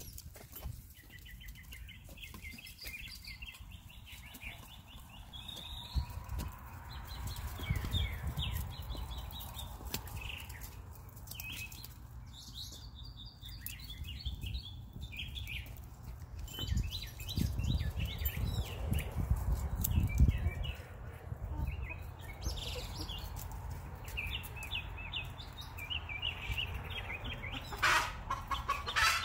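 Easter Egger and White Leghorn hens clucking and chirping softly as they feed, in many short calls, with a few low rumbles and a sharper burst of calls near the end.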